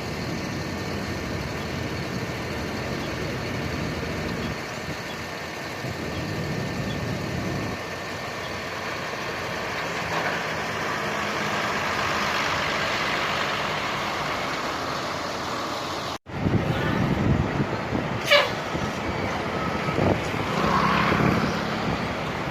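Steady road noise of heavy vehicles such as buses and trucks running past. After a sudden cut about 16 seconds in, the noise is louder, with a quick falling tone about two seconds later and a short pitched blast near the end.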